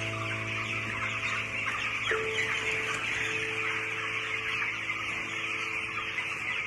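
A large flock of young broiler chicks peeping together as a dense, steady chatter, with background music of long held chords underneath.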